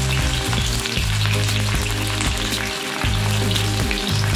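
Sliced onion and chillies sizzling steadily in hot oil in a kadai.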